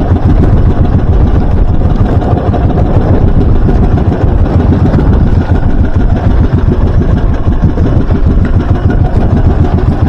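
Outrigger boat's engine running steadily under way through choppy water, with water splashing along the hull.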